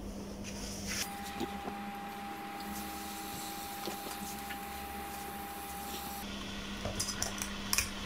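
Electric kettle heating water just after being switched on: a faint, steady hiss with a low hum. A thin steady tone sounds for a few seconds in the middle, and small handling clicks come near the end.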